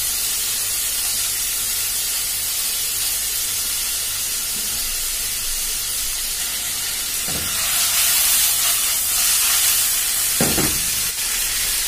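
Chopped lamb and lamb tail fat frying in oil in a frying pan: a steady sizzle that grows louder about two-thirds of the way through, as the pan is tilted by its handle. Two short knocks stand out, one in the middle and one near the end.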